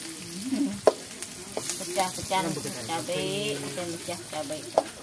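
Metal spatula stirring and scraping in a black wok while chopped aromatics sizzle in hot oil over a wood fire, with a few sharp clanks of the spatula against the pan, about a second in and near the end.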